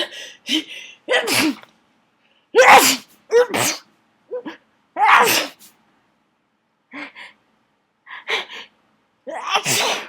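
A person sneezing repeatedly in a fit, about five loud sneezes with sharp catching breaths in between, two of them close together a little before the middle. The fit is set off by attic dust.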